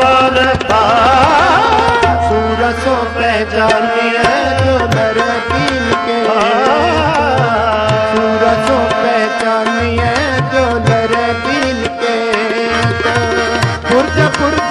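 Sikh kirtan music between sung lines: tabla keeps the rhythm under sustained harmonium chords, with ornamented, wavering melodic runs about a second in and again around six seconds.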